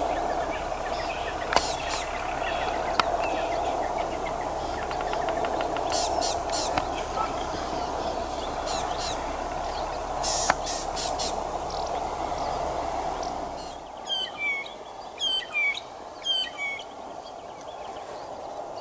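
Wild birds chirping and calling in dry bush over a steady background drone, with a couple of sharp ticks early on. Near the end the drone fades, and a bird repeats a short call that falls in pitch about five times in quick succession.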